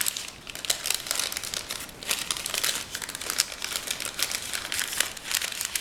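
Parchment paper crinkling as it is folded and pressed by hand into a box shape, in quick irregular crackles.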